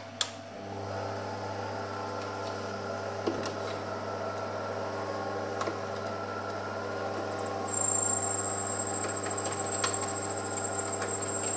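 Mini lathe's motor starting about a second in and then running steadily, with a few knocks as the stud and tailstock are handled. From about eight seconds a high-pitched steady whine joins it as the tool turns down the steel stud.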